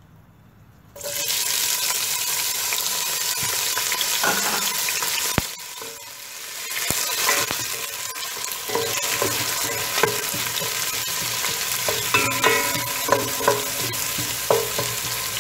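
Chopped purple onions hitting very hot oil in a stainless steel pot: the sizzle starts suddenly about a second in and keeps frying on, stirred and scraped with a wooden spoon.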